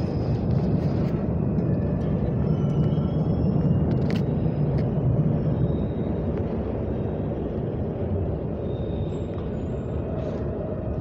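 A subway train pulling into the station: a steady low rumble, loudest in the first half, with faint short high-pitched squeals over it and a sharp click about four seconds in.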